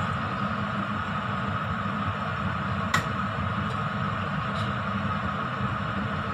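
A steady kitchen hum and hiss, with a wooden spatula stirring cooked glutinous rice in a stainless steel pot and one sharp clack of the spatula against the pot about three seconds in.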